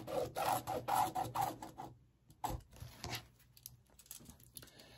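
Friction pen scratching across a cotton fabric square along an acrylic quilting ruler: a quick run of scratchy strokes for about two seconds. About two and a half seconds in there is a single knock, followed by faint handling of the ruler on the cutting mat.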